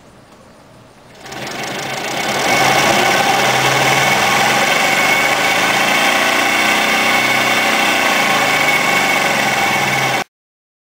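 Forklift DC traction motor, used in an electric truck conversion, spinning up about a second in and running at steady speed, turning the truck's transmission through the adapter plate: a loud, steady mechanical whirr with a high tone. It stops suddenly near the end.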